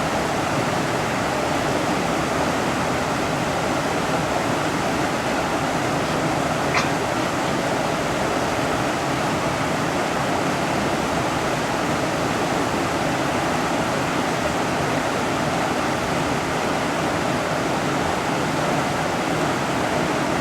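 Mountain river flowing, a steady rushing of water, with one brief faint tick about seven seconds in.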